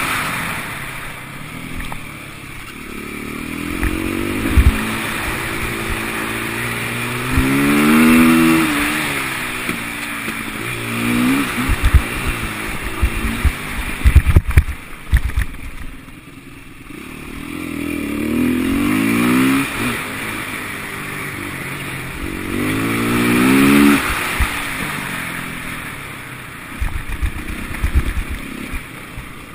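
KTM 450 SMR's single-cylinder four-stroke engine revving hard and easing off again and again, about five rising surges, with a cluster of sharp knocks around the middle.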